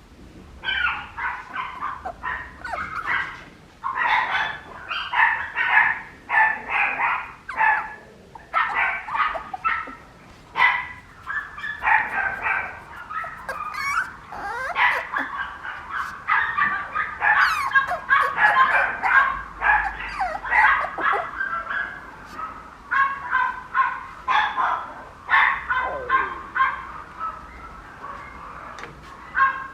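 Papillon puppy yipping and squeaking over and over in short, high-pitched cries, with brief pauses between runs.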